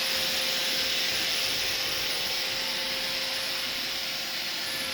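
Roomba robot vacuum running steadily, its motor and brushes giving a constant whirring hiss with a faint steady hum underneath.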